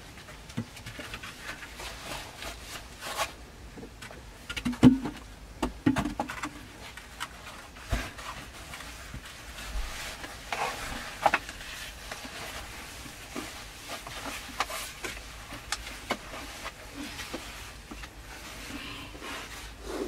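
Irregular footsteps, scuffs and light knocks of a person moving through a narrow earthen tunnel, with a sharper knock about five seconds in.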